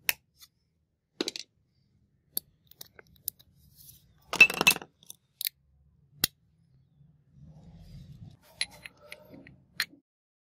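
Metal parts of a jigsaw being handled and fitted together by hand: scattered sharp clicks and light knocks, with a louder rattling clatter about four and a half seconds in.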